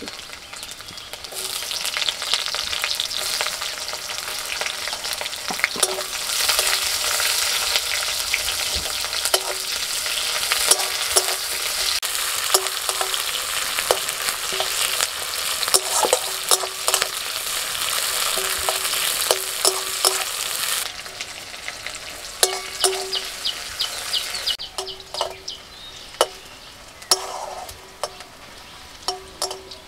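Chopped onion and garlic frying in hot mustard oil in a kadai (wok), with a steady sizzle while a spatula stirs, scraping and tapping against the pan. The sizzle comes up loud about a second in and drops off around twenty seconds in, leaving mostly spatula scrapes and taps.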